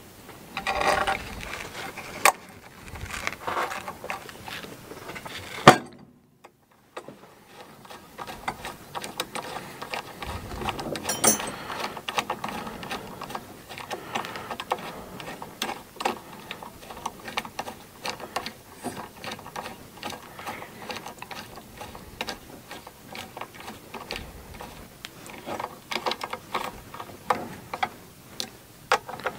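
Small ratcheting bit screwdriver clicking rapidly as it drives an M3 screw into an aluminum printer bearing block. A single sharp knock sounds about six seconds in.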